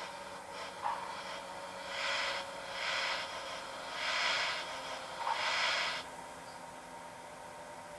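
Garden-scale model of an HSB narrow-gauge steam locomotive hissing in four bursts of about half a second each, its steam-release sound playing as vapour puffs from the cylinders.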